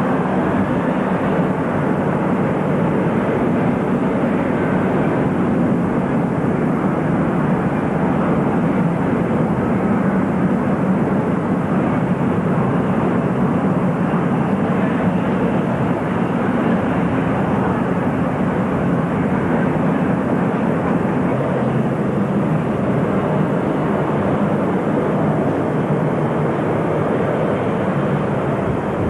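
Jet airliner engine noise from four-engined airliners, a Boeing 747 and a Boeing 707, moving on the airfield. It is heard as a steady, even noise that does not rise or fall.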